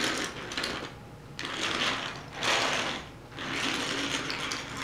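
Diecast Take-n-Play toy engine and tender pushed by hand along a plastic fold-out track, the wheels rattling over the track in several short runs with brief pauses between them.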